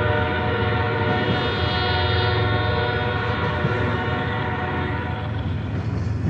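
Diesel locomotive air horn sounding a sustained multi-note chord over the low, steady rumble of a passing BNSF double-stack intermodal freight train. The horn fades about five seconds in and sounds again near the end.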